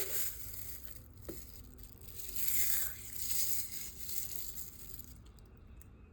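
Crinkling, rustling noise that peaks about two and a half seconds in and dies away after about five seconds.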